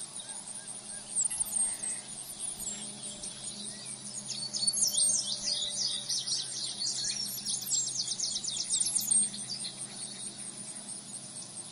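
Songbirds singing in quick runs of short high chirps, busiest in the middle, over a steady high-pitched insect trill.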